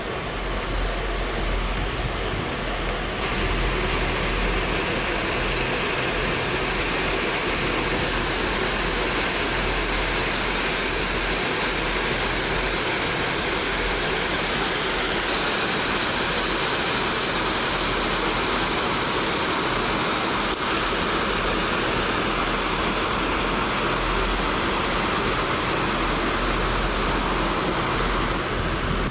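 Steady, even rushing noise with a low rumble underneath, growing slightly louder about three seconds in.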